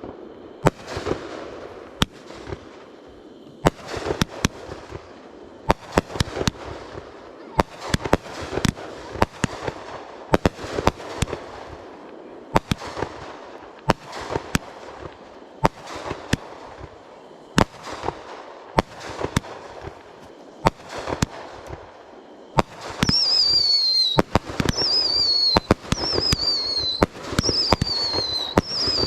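Fireworks show: a rapid, irregular string of sharp bangs, each trailing off in crackle. From about three-quarters of the way in, a high whistle that falls in pitch repeats about once a second over the bangs.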